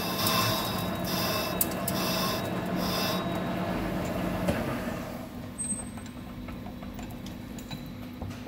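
Hafco TM-26120G centre lathe spinning a large Caterpillar 777 suspension strut in its chuck, a whir that pulses a little under once a second. About four to five seconds in it runs down and stops, leaving only a faint steady hum.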